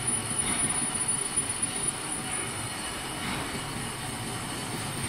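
Metal lathe running while a single-point tool faces the end of a steel ring, a steady machine noise with the sound of the cut over it. The cut is rougher and more uneven for about the first two seconds, then settles steadier.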